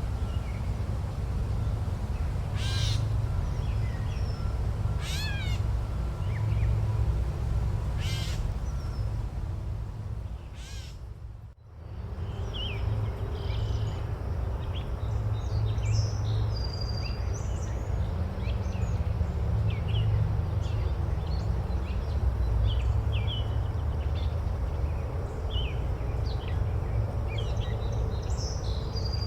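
Forest ambience: birds giving about four harsh caws a couple of seconds apart, then a brief fade nearly to silence about halfway through, followed by many small birds chirping. A steady low rumble runs underneath throughout.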